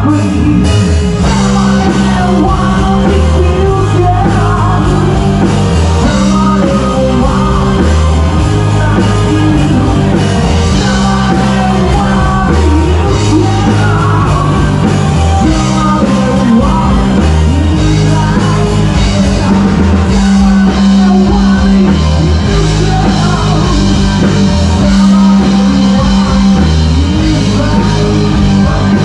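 Rock band playing with a singer: steady bass line, drum kit and wavering sung vocals, loud throughout.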